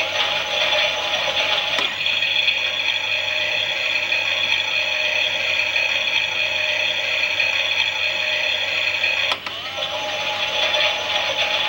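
Small battery motor and plastic gears of a Klein toy Miele washing machine whirring as they turn the drum. The sound changes with a click about two seconds in and again near the end.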